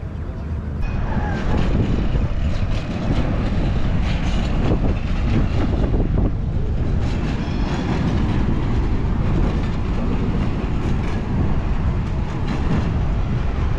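Train running on the rails: a steady low rumble with repeated clicks and clatter from the wheels.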